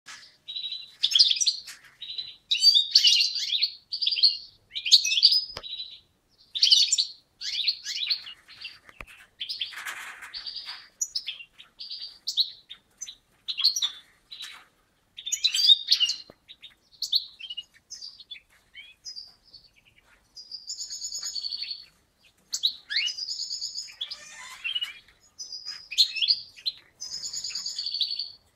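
European goldfinches twittering and singing: phrase after phrase of rapid high chirps and trilled notes, broken by short pauses.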